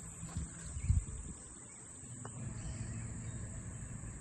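Outdoor ambience: a steady high-pitched insect drone, such as crickets, over low wind rumble on the microphone, with one louder gust about a second in.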